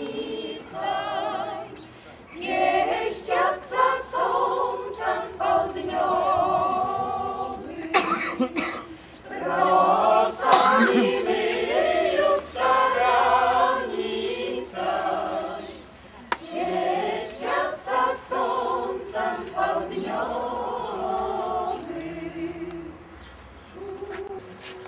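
Amateur mixed choir of women's and men's voices singing a cappella, in phrases with short breaks between them, growing quieter near the end.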